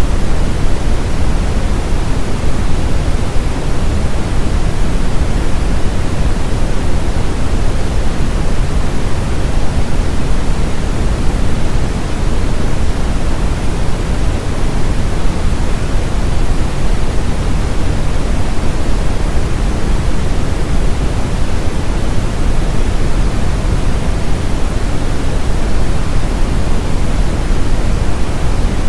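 Steady synthetic brown noise: an even, unbroken hiss with most of its energy in the low end, like a deep rumble.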